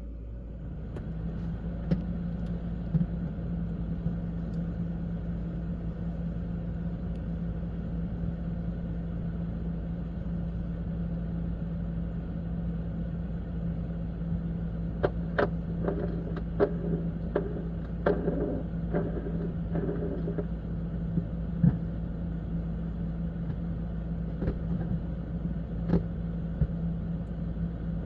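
LG French door refrigerator-freezer running with a steady low hum that starts up about a second in. A quick series of clicks and taps comes around the middle, with a few single ticks elsewhere.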